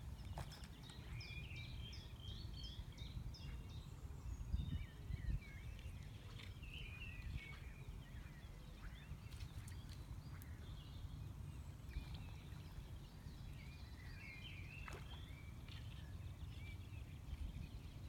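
Small birds singing, with many short chirps and warbles, densest in the first few seconds and again near the end, over a low rumble of wind on the microphone that gusts briefly about four seconds in.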